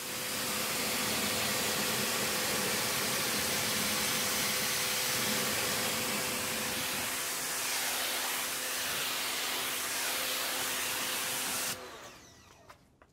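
Pressure washer jet spraying water onto a steel wheel and tire, rinsing off the wheel and tire cleaner: a steady hiss with a steady hum under it, cutting off suddenly near the end.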